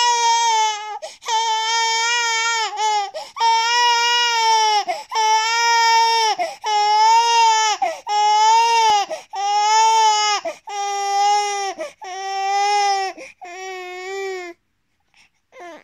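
Baby crying in its sleep, which the uploader takes for a nightmare: a run of about ten long wails, each falling in pitch as it ends, with short gasps between. The last few wails are shorter and lower before the crying stops.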